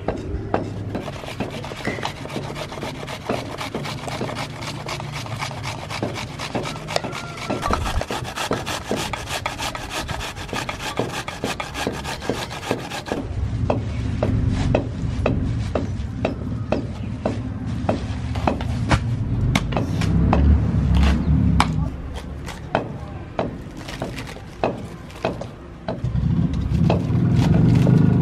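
Red onion grated on a metal box grater into a steel bowl, a fast run of rasping strokes, with knife taps on a wooden chopping board. About halfway through, the grating stops and a knife cuts through a head of cabbage with crunching strokes.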